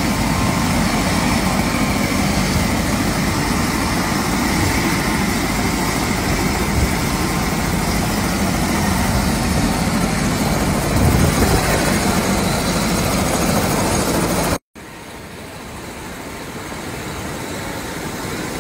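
Helicopter engine and rotor noise, a loud steady rush. After a cut about 15 seconds in it is heard from inside the cabin, starting quieter and building steadily louder.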